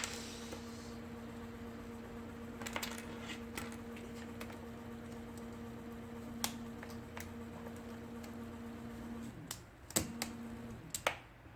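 IBM Selectric II typewriter with its motor switched on, humming steadily, while the mechanism gives scattered clicks and clacks as it is worked. The hum stops about nine seconds in, followed by a couple of sharp clicks.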